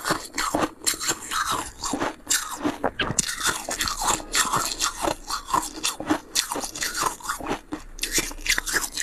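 Crunchy ice being bitten and chewed close to the microphone: a rapid, irregular run of crisp crunches, several a second.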